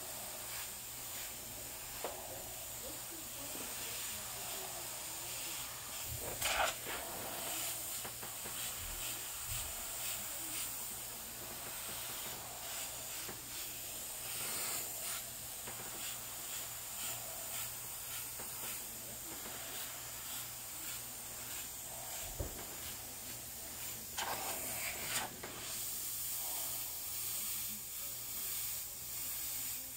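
Airbrush spraying paint: a steady high air hiss from the nozzle, with short louder bursts about six seconds in and again around twenty-four seconds.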